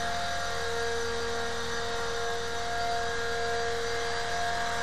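Small radio-controlled aircraft's electric motors and rotors running in flight: a steady whine with two clear tones over a rush of air.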